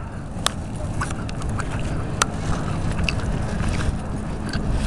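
Steady low rumble of wind on the microphone, with a couple of sharp clicks and faint short sounds above it.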